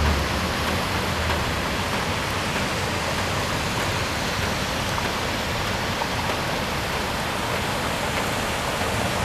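Steady hiss of heavy rain and rushing floodwater. A low vehicle engine hum fades out about a second in.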